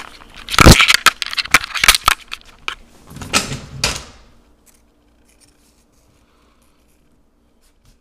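Rustling and clicking handling noise as the camera is picked up and moved, with a thump less than a second in. It stops about four seconds in, leaving only a few faint ticks.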